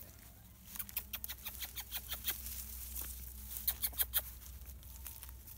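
Tall dry grass and weeds rustling and crackling as something pushes through them, in quick irregular crackles that start about a second in and are loudest around four seconds in.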